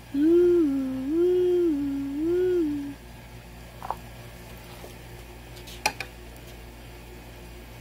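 A voice humming a short, satisfied tune of three rising-and-falling swells, high and low notes alternating, for about three seconds. Then two short clicks, the second sharper.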